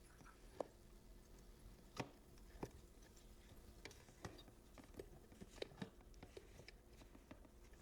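Near silence broken by faint, scattered light clicks and taps, about fifteen at uneven spacing, from handling a phone screen and a UV curing machine.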